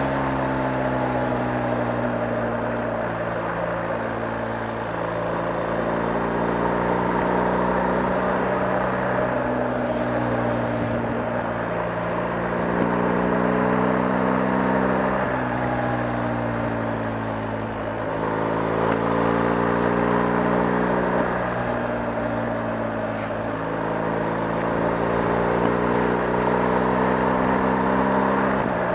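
BMW R 1250 GS's 1254 cc boxer-twin engine running under way, its note rising and falling in pitch several times as the speed changes, over a steady rush of wind and road noise.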